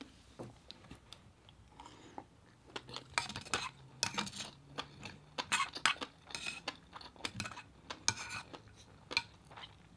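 Metal spoon scraping and clicking against a plate as rice is scooped up, in faint, scattered short clicks and scrapes with chewing between.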